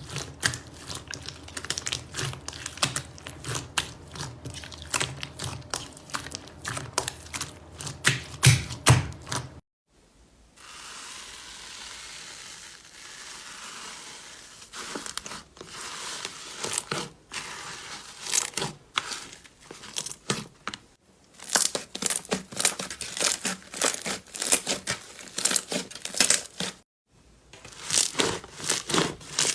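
Hands squeezing and pressing slime: dense runs of small crackles and pops, broken by three brief gaps. For a few seconds about a third of the way in there is a softer, even hiss.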